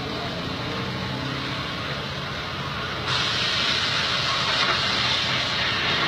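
A burning car, its fire giving off a steady rushing hiss that suddenly grows louder about three seconds in; the onlooker takes it that the fire has reached the gas tank.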